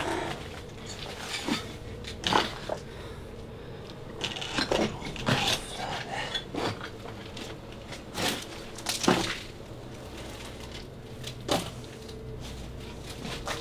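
About ten short, sharp knocks and clicks at irregular intervals, heard in a small room over a faint steady hum.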